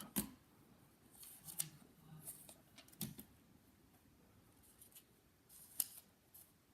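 Faint handling of trading cards: a few light clicks, taps and brief sliding rustles as cards are moved and set down, the sharpest tap near the end.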